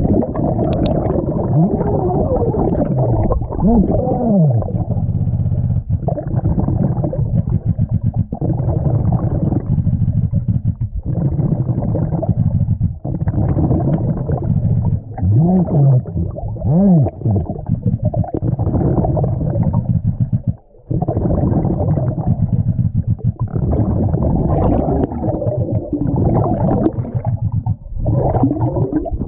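Muffled underwater noise picked up by a camera in its waterproof housing: a continuous low rumble and gurgling, with slow wavering pitch sweeps and short breaks every few seconds.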